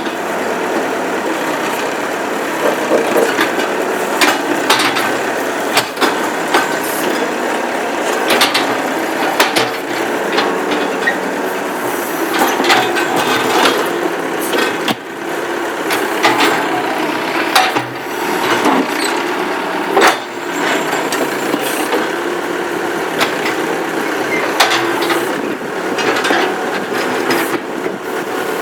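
Massey Ferguson 50A backhoe's engine running steadily under load while it digs, its pitch rising and falling. Many sharp cracks and knocks come through it: wood and roots splitting as the bucket tears at a maple stump.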